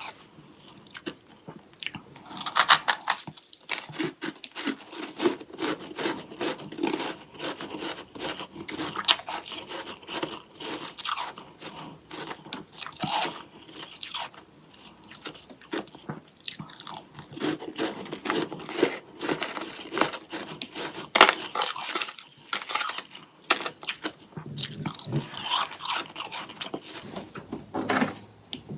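Close-miked biting and chewing of soft freezer frost: continual irregular crunching and crackling.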